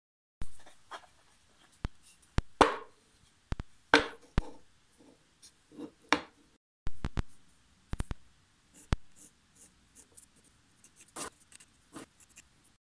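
Scattered knocks and clicks of wooden blocks and small tools being set down and handled on a wooden workbench, at irregular intervals; the loudest knocks, with a short ring, come about two and a half and four seconds in.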